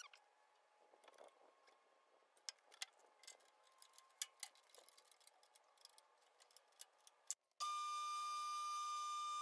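Faint scattered clicks and ticks of hands fitting a thin .001 in metal shim under a metal lathe. About three-quarters of the way in, the lathe starts abruptly and runs with a loud steady high whine as it spins a steel test bar.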